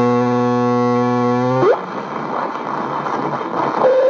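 Delta DBR 5500 multiband radio's loudspeaker giving a loud, low buzzing tone. About a second and a half in, the tone sweeps up in pitch and breaks into loud static, and a short whistle comes near the end. This is the set's fault: it whistles and makes noise when the volume or tone is turned up.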